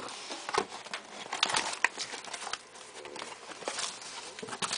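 A cardboard shipping box being handled and opened by hand: irregular rustling, scraping and tapping of the cardboard as its flaps are pulled apart.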